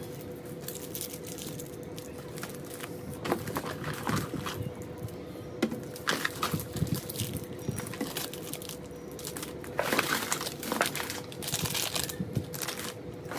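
Plastic chocolate-bar wrappers and sweet packets crinkling and rustling in irregular handfuls as they are pulled out of a cardboard box and dropped onto a pile.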